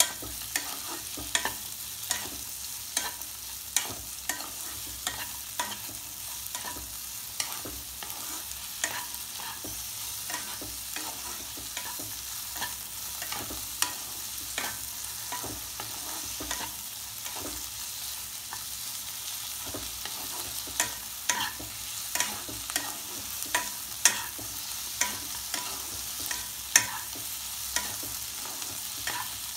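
Diced onion, capsicum and tomato sizzling in butter in a kadhai, with a wooden spatula scraping and knocking against the pan about once or twice a second as the vegetables are stirred.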